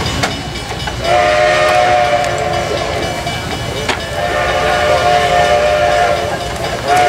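A steam whistle blowing three long blasts, each sounding several tones together as a chord and lasting about two seconds, the third starting near the end.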